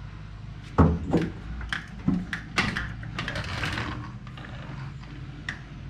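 Irregular metal clunks and clatters of a suspension lift block and hardware being worked into place on a pickup's rear leaf-spring perch. The loudest knock comes about a second in, over a low steady hum.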